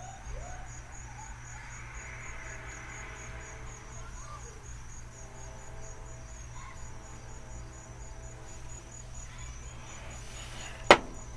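Faint insect chirping, a high-pitched pulse repeating about four times a second, over a low steady hum, with a single sharp click near the end.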